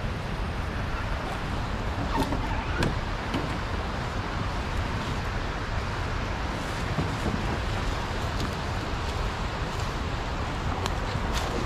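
Steady rumbling wind noise on the microphone, with a few sharp crackles in dry leaves and brush about two and three seconds in and again near the end.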